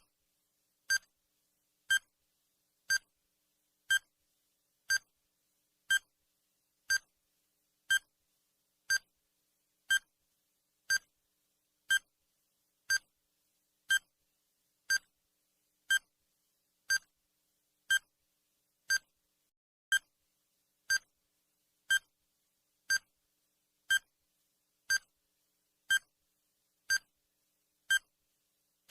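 Countdown timer sound effect: a short, high electronic beep once every second, evenly spaced, with silence between the beeps.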